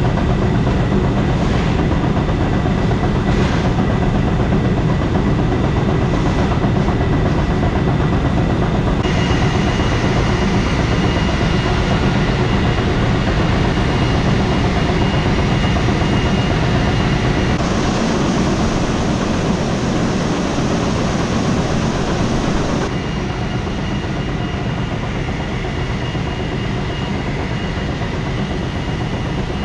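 Grain auger running steadily as it empties a soybean bin, with a thin high whine over the machine noise. The sound shifts abruptly about nine, eighteen and twenty-three seconds in.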